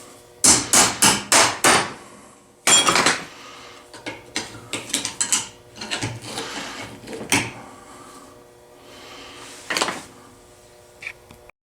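Hammer striking a rusted, seized vise-grip pliers, metal on metal: five quick blows about half a second in, a heavier ringing blow near three seconds, then lighter knocks and clicks.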